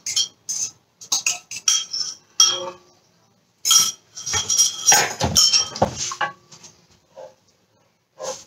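Utensils clinking and scraping against ceramic mixing bowls as beaten eggs are tipped and scraped out into a pan: a run of sharp ringing clinks, a denser stretch of scraping and clinking about four to six seconds in, then a few soft taps.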